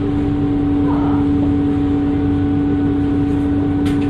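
Dennis Trident II bus's diesel engine running with a steady, unchanging turbo whistle over the engine's rumble. A short click sounds near the end.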